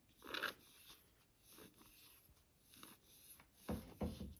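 Faint handling sounds of cardstock and a squeeze bottle of glue: a brief rustle about half a second in, and two soft knocks near the end.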